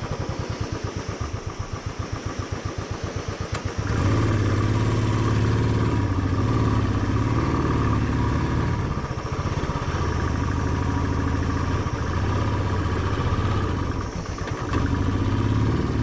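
Motorcycle engine idling with a rapid, even beat of firing pulses. About four seconds in it revs up and the bike pulls away, and the engine keeps running under load with its pitch rising and falling, dipping briefly once near the end.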